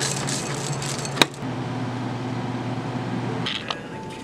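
Dry cereal pouring and rattling from a gravity-fed bin dispenser into a bowl, ending with a sharp click about a second in. A steady low machine hum follows and drops away a little past three seconds in.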